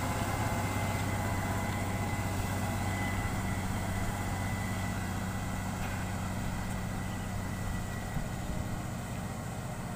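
Diesel engine of a loaded logging truck running steadily as the truck descends and drives away, growing slightly fainter. A thin high whine sounds for the first few seconds.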